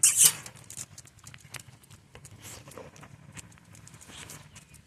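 A dog moving about: a short, loud, breathy burst right at the start, then scattered light clicks and taps at irregular intervals.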